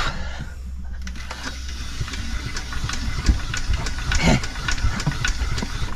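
Bukh DV20 two-cylinder marine diesel being turned over by hand with its starting handle, giving a regular knocking about three times a second, without catching.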